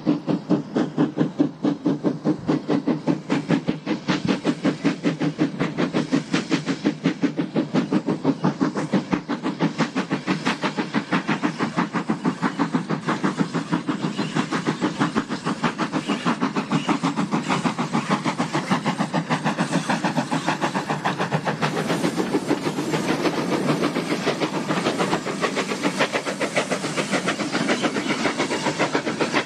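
GWR 0-6-0 pannier tank steam locomotive hauling a train, its exhaust beating in a fast, even rhythm with steam hiss. The character of the beats changes about two-thirds of the way through.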